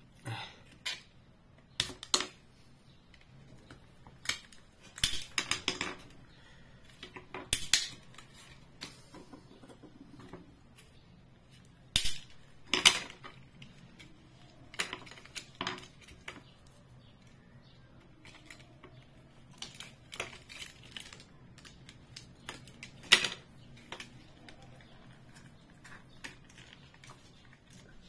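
Irregular clicks, taps and scrapes of small hand tools prying at a digital bathroom scale's plastic housing to work its display loose, with a few short clusters of louder knocks.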